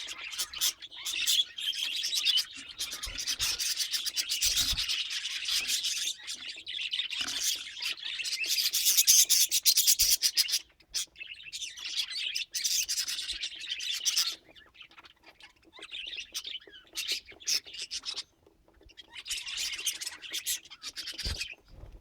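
Budgerigars chattering and warbling: a dense, scratchy stream of chirps and clicks, near-continuous for the first ten seconds, then in shorter, quieter spells with pauses between them.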